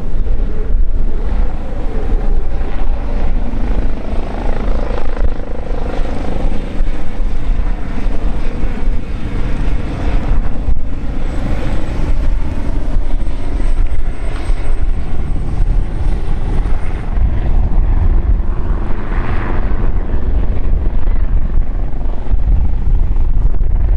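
AgustaWestland AW139 helicopter flying a display pass, its rotor and engine noise loud and steady throughout.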